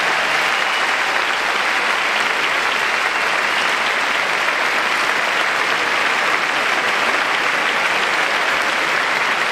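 A large theatre audience applauding steadily as the opera cast take their curtain-call bows.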